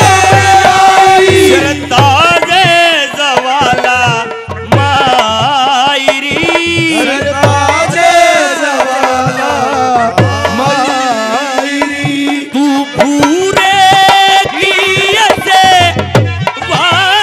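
Live Haryanvi ragni music: a hand drum keeps a steady beat under a wavering, ornamented melody line.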